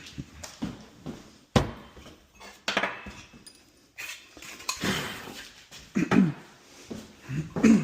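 Metal clinks and knocks, irregular and sharp, of shower-head fittings and tools being handled, with a few short low vocal sounds around the six-second mark and near the end.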